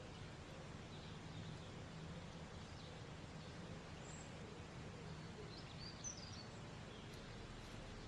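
Faint outdoor background with a steady low hum, and a few short, high bird chirps in the middle, most likely from the goldfinches at the feeder.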